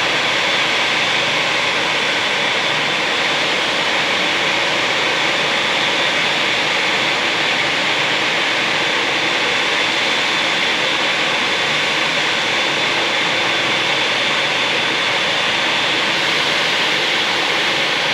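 ANA Boeing 787-9's Rolls-Royce Trent 1000 jet engines running steadily at low thrust while taxiing, a constant rush with a steady high whine.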